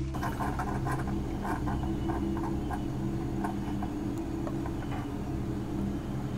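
A quick run of light clicks and clinks from kitchen items being handled at a countertop coffee maker, thinning out after about four seconds, over a steady low hum.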